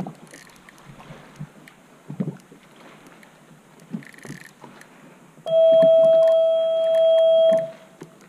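A loud steady tone, one unchanging pitch, sounds for about two seconds starting a little past the middle and cuts off abruptly. Before it, a few light knocks over low background noise.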